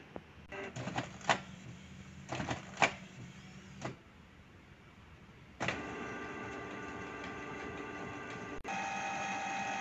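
Canon Pixma G3411 ink tank printer's internal mechanism running through its initial ink charge, pumping ink from the tanks to the cartridges: a steady motor whir that stops, gives way to a few clicks and knocks, then starts again about halfway through and changes pitch near the end.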